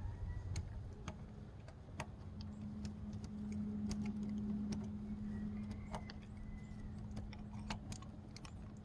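Scattered light clicks and taps of metal engine parts and tools being handled, irregular and spread throughout, over a steady low hum.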